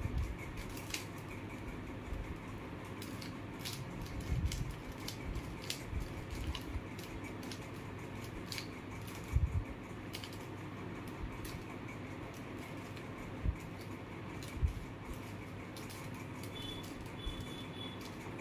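Plastic mirror cube being turned by hand: scattered light clicks of its layers snapping round, with a few soft knocks over a steady background hiss.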